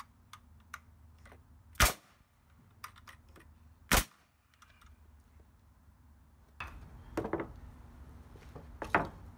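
Pneumatic framing nailer firing twice, about two seconds apart, driving nails into pressure-treated lumber, each a sharp single shot. Later come wooden knocks and scraping as the boards are shifted, with a louder knock near the end.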